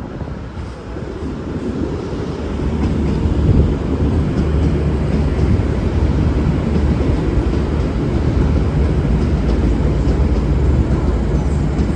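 V/Line VLocity diesel multiple unit pulling out of a platform, its diesel engines and wheels making a low rumble. The rumble builds over the first few seconds, then stays steady and loud.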